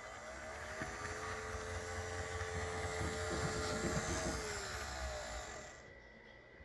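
Electric motor whine of a Proto 1000 Budd RDC HO-scale model railcar running on DC, rising in pitch as it speeds up, holding steady, then falling away as it slows. Its wheels click on the track in the middle.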